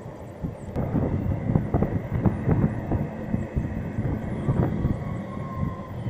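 Wind buffeting the microphone on a moving golf cart, a gusty low rumble, with a faint steady high whine underneath.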